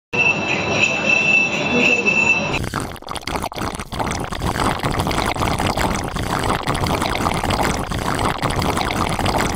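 Electric sugarcane juice crusher running with a steady high-pitched squeal. About two and a half seconds in, the sound cuts to a busy, noisy din full of small clatters from the juice stall.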